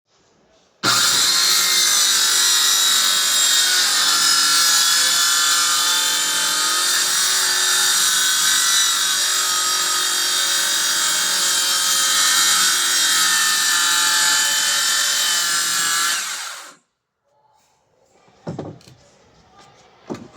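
Circular saw cutting through plywood: a loud, steady high whine with several held tones, starting suddenly about a second in and cutting off at about sixteen seconds. Two short knocks follow near the end.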